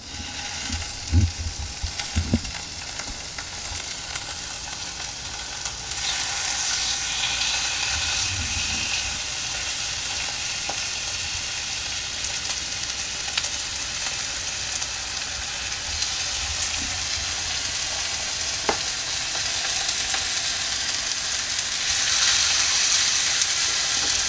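Raw chicken thighs sizzling in hot olive oil in a cast-iron skillet as they are laid in to sear, with a few soft knocks as pieces go down in the first couple of seconds. The sizzle grows louder about six seconds in and again near the end.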